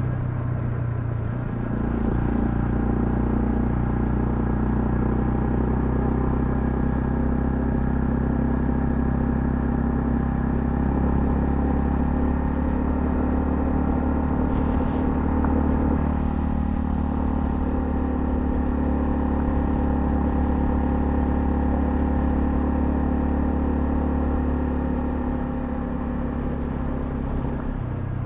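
Honda CL250's single-cylinder engine running steadily under way, its note stepping up in pitch and loudness about two seconds in and easing off slightly near the end.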